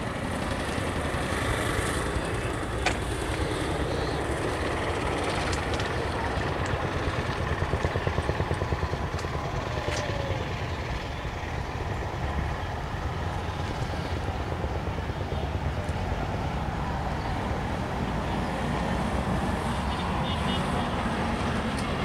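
Diesel locomotive hauling a passenger train, approaching along the track with a steady low rumble of engine and wheels on the rails.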